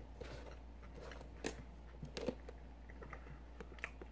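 A few scattered light clicks and taps as a small cardboard box is picked up and handled.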